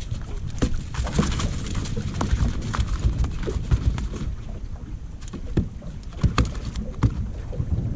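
Landing net and its pole knocking and tapping against a small boat as a small flathead is netted and lifted aboard: a string of sharp knocks of varying loudness over a steady low rumble.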